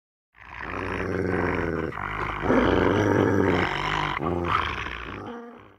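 Sound effect of a large beast growling and roaring, a rough low growl that starts just after the opening, swells to its loudest around the middle and fades out near the end.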